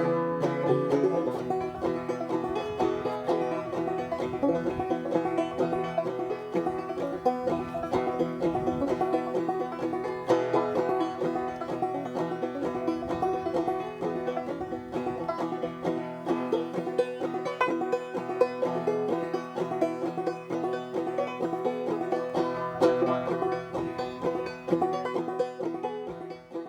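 Banjo picking a fast bluegrass tune, fading out at the very end.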